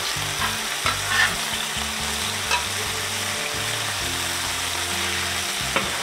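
Smash-burger patties sizzling steadily on a hot Blackstone steel flat-top griddle as a stiff beveled spatula scrapes under them to flip them. There are several short scrapes and clicks of the spatula on the griddle plate, most of them in the first three seconds.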